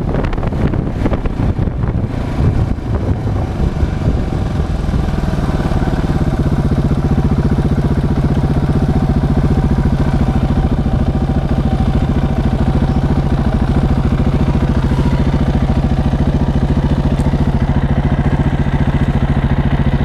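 KTM 690 SMC single-cylinder motorcycle engine running, with wind buffeting on the microphone for the first few seconds. From about six seconds in, the engine holds a steady, even note.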